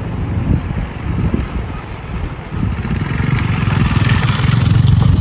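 A motorcycle engine running as the bike rides toward and past, getting louder from about three seconds in.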